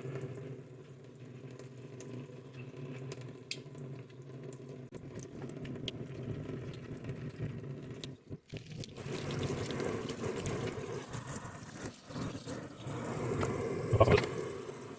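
Tap water running into a sink while a doll's hair is washed. After a brief drop-out about eight seconds in the flow comes back louder and hissier, and there is a short knock near the end.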